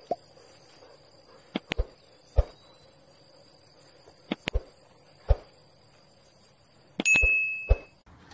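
A steady high-pitched insect buzz, broken every second or so by sharp knocks and clinks. About seven seconds in, a cluster of knocks is followed by a brief metallic ring.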